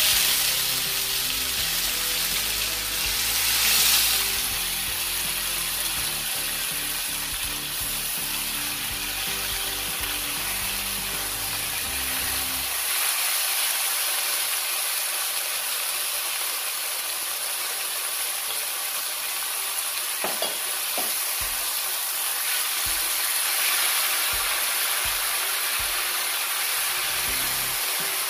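Marinated beef strips sizzling in hot vegetable oil in a cast-iron skillet, loudest as the meat goes into the pan at the start and again a few seconds in, then a steady sizzle as a metal spatula stirs it.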